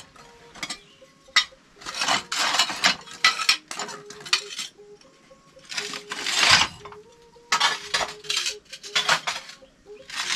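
Leftover tile pieces clinking and scraping against each other as they are picked up and sorted by hand, in repeated bursts of clatter with short pauses between.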